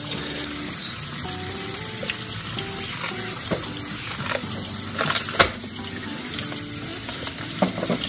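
Kitchen tap running a steady stream into the sink and splashing over the fish, with one sharp click about five seconds in. Quiet background music with a simple melody plays under it.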